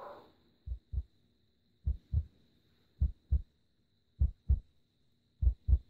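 Heartbeat sound effect opening a music track: five slow double thumps, lub-dub, a pair a little more than once a second, with the tail of a breath at the very start.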